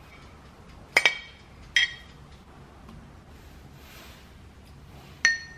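Metal spoon clinking against glass three times as fruit is spooned into a glass tumbler. Each clink rings briefly, and the first is doubled.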